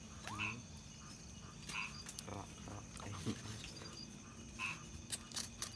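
Night-time chorus of frogs and insects: short calls repeating every second or so over a faint, steady insect trill, with a few sharp clicks near the end.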